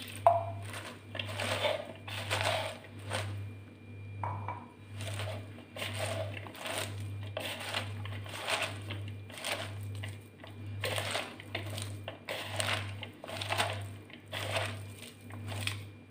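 A hand squeezing and tossing shredded cabbage and carrot with gram flour, cornflour, spices and water in a bowl, working the pakora mix together: a string of rustling, wet strokes, about one or two a second.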